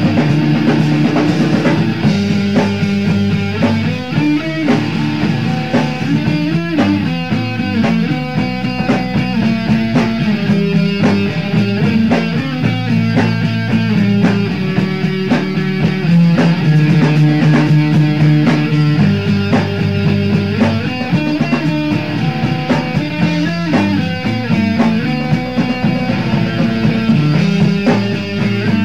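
Three-piece rock band playing an instrumental passage: guitar, bass and drum kit, without vocals.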